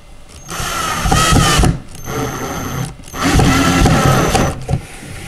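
Cordless drill/driver driving a long wood screw through the back of a wooden doll high chair into the arm post. The motor whines in two runs of about a second and a half each, with a pause between them.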